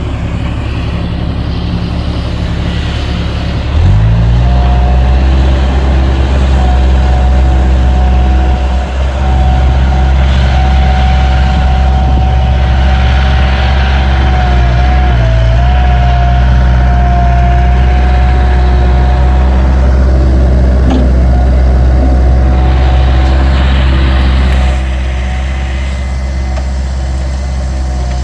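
Skid steer's diesel engine running, throttled up about four seconds in and held at high revs with a steady high whine over it, then easing back near the end.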